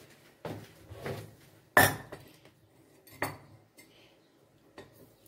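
A metal kettle and a tea glass with a spoon in it being handled on a countertop: a few clinks and knocks of metal and glass, the loudest a sharp clank about two seconds in, another a little past three seconds.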